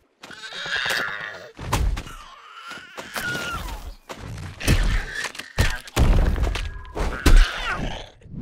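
Cartoon fight sound effects: a series of heavy thuds and impacts, with short creature cries between them.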